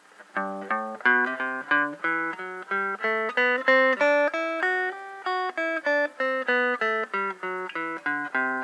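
Guitar playing a two-octave G major scale one note at a time, up from the low G at the third fret of the low E string and back down again, at an even pace of about three to four notes a second with a clean tone.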